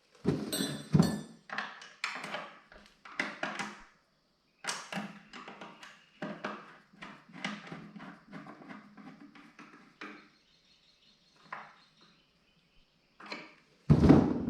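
Hand work on a tractor fertilizer hopper being reassembled: a busy string of knocks, clunks and scrapes of parts and tools, with a loud thump near the end.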